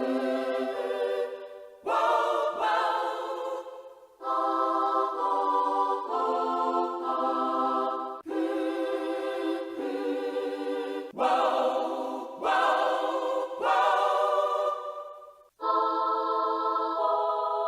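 Yamaha PSR-E373 keyboard playing its synthesized choir voices: short phrases of held chords in a sung "aah" and "hmm" choir sound, the voice changing at each break every two to four seconds.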